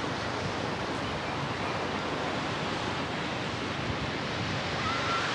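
Steady rush of wind and sea surf on a shingle beach, with wind buffeting the microphone.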